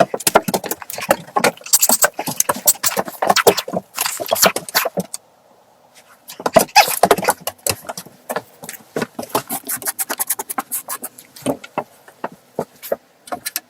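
Rapid, irregular clicks, knocks and scrapes, like hand work with tools or materials, stopping for about a second partway through.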